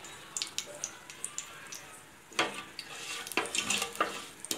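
Mustard seeds and fenugreek spluttering with scattered small pops in hot sesame oil during tempering, the popping showing the oil is hot enough. From about two and a half seconds in, a slotted wooden spatula stirs them around the pan, bringing louder sizzling and scraping.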